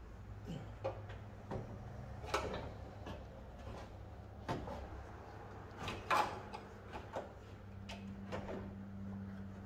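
Scattered light knocks, clunks and scrapes, the loudest about six seconds in, as a car radiator with its cooling fans attached is handled and slid down into the engine bay. A steady low hum runs underneath.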